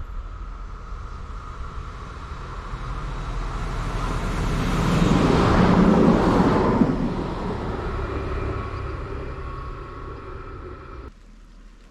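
A train passing by, growing louder to a peak about halfway through and then fading away; the sound cuts off abruptly near the end.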